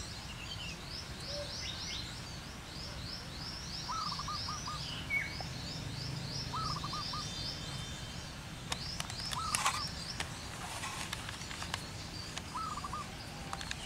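Zebra dove cooing: four short phrases, each a rising note followed by three or four quick notes, about three seconds apart. A fast run of high chirps from another small bird continues through the first half, and a few sharp ticks come near the middle.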